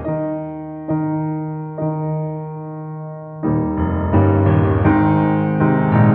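Background piano music: a few slow held chords, then a busier passage from about three and a half seconds in.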